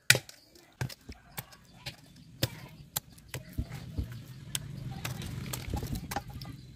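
Chicken being chopped into pieces: irregular sharp knocks of a blade striking the cutting surface, with a low steady hum in the latter half.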